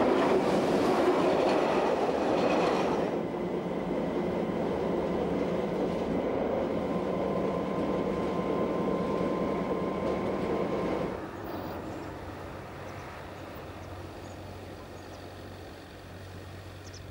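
Red electric railcar of the Appenzell Railways passing close by, a loud rush of wheels on the rails, then running on with a steady whine. About eleven seconds in the sound drops to a quieter, lower rumble.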